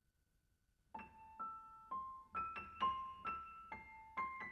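Slow piano melody of single struck notes, about two a second, each ringing and fading, starting about a second in after a moment of silence.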